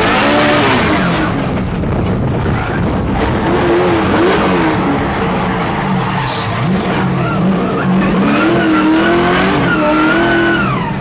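LS-swapped V8 of a 1000 hp BMW E92 M3 drift car heard from inside the cabin, its revs rising and falling again and again while drifting, with tyres skidding.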